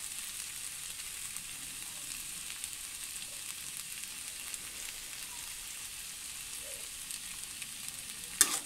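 Diced beetroot and carrot frying in an aluminium kadai, with a steady high sizzle. Near the end a spatula starts stirring, with a few loud scraping strokes against the pan.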